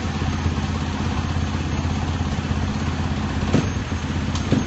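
KTM dirt bike engine idling steadily, with two brief sharper ticks near the end.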